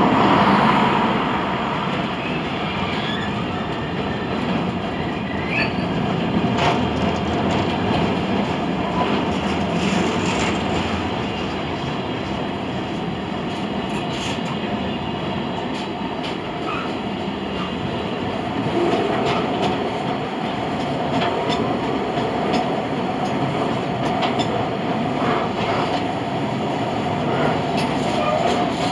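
Container wagons of a freight train rolling past: a steady rumble of steel wheels on rail with scattered clicks over rail joints and a faint wheel squeal on the curve. Loudest about the first second.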